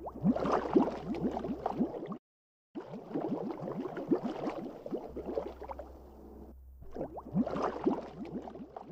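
Underwater bubbling sound effect: a dense stream of bubbles gurgling as many quick rising blips, broken by two brief silences, about two seconds in and again a few seconds later.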